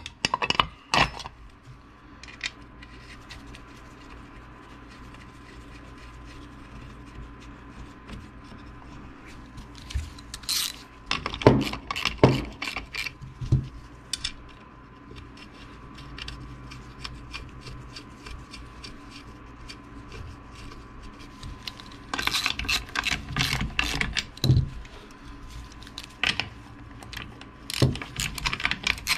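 Handling of metal parts on a workbench: scattered clicks and knocks as a chainsaw's side cover and bar nuts are fitted. Near the end a socket ratchet clicks in quick runs as the bar nuts are tightened. A faint steady hum lies underneath.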